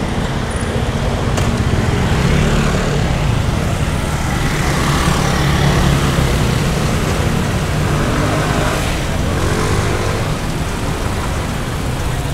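City street traffic: a steady rumble of passing cars and scooters, swelling as a vehicle goes by close about halfway through.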